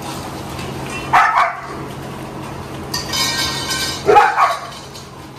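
Dogs barking: two short barks, about a second in and about four seconds in. Between them comes a ringing metallic clink, like a steel food bowl being handled.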